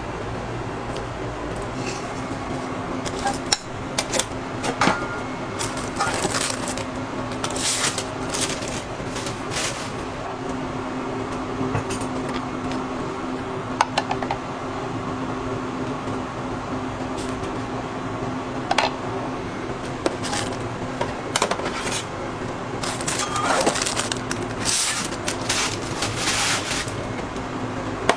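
Kitchen work sounds: a steady machine hum, like a ventilation fan, with scattered clicks and clatters of utensils and containers, busier near the end.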